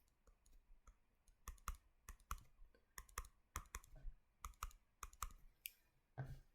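Faint, irregular clicks and taps of a pen on a writing surface while drawing, about two or three a second, starting about a second and a half in.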